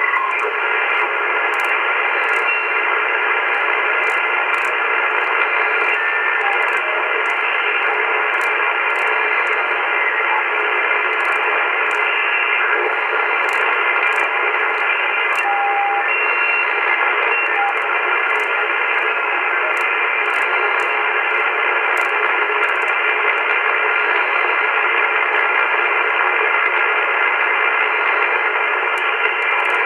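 Shortwave band noise hissing steadily from an AOR AR-8600 communications receiver in upper-sideband mode as it is tuned slowly up through about 2.8 to 3 MHz. Faint steady whistles of carriers sit in the hiss, and there are scattered faint clicks.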